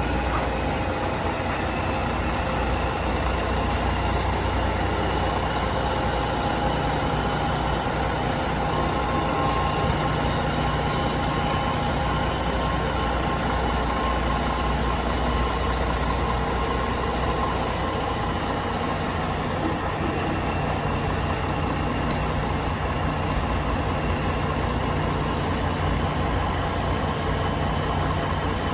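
Heavy truck engine idling, a steady low rumble with an even hum above it.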